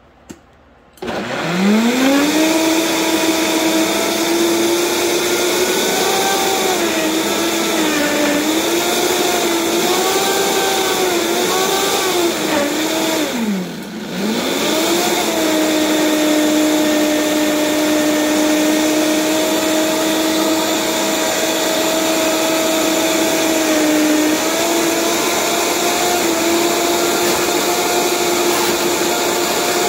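Vitamix blender motor starting after a click about a second in and spinning up. Its pitch wavers as it works a load of avocado, cilantro and liquid into a sauce. About halfway through it slows sharply for a moment, then spins back up and runs steadily.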